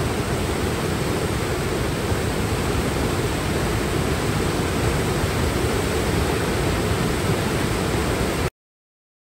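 Waterfall rushing, a steady noise of falling water that cuts off suddenly near the end.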